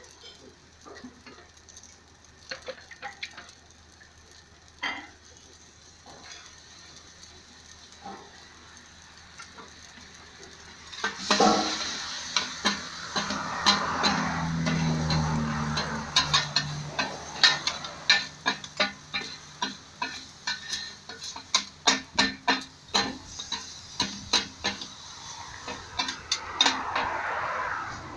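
Metal spatulas clanking and scraping on a large wok as shrimp and pad thai ingredients are stir-fried. Scattered taps at first, then a loud sizzle that starts suddenly about eleven seconds in, with steady sizzling and quick spatula strikes after it.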